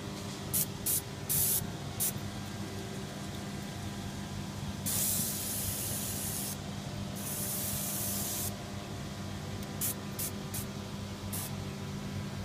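Dry ice blasting gun firing in bursts of hiss: a few quick pulses in the first two seconds, two longer blasts of well over a second in the middle, then more short pulses near the end. Under the bursts runs a steady low machine hum.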